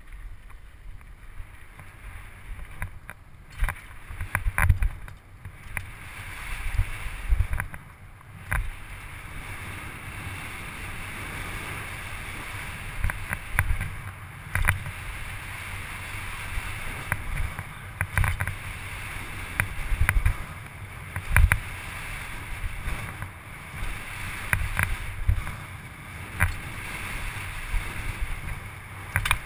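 Wind rushing over a helmet-mounted camera's microphone and tyres rolling on a dry dirt and gravel trail as a downhill mountain bike descends at speed. Frequent sharp clatters and thumps come from the bike hitting bumps.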